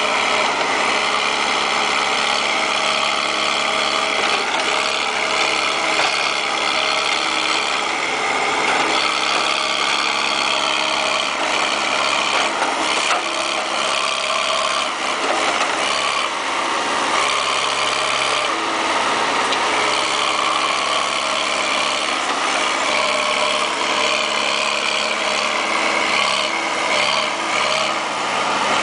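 Backhoe engine running steadily.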